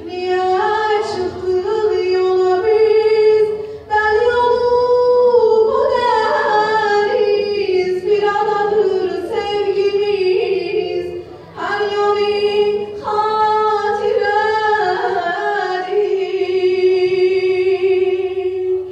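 A young woman singing an Azerbaijani song into a microphone, with long, ornamented held notes and a long sustained note near the end.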